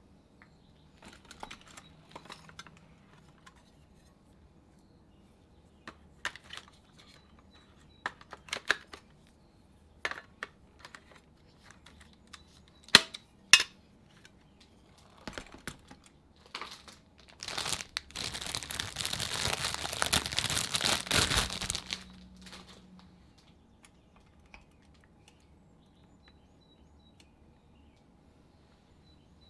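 Packing paper crinkling and tearing as the toy is unwrapped, with scattered clicks and knocks of handling, and a longer burst of rustling about two thirds of the way through.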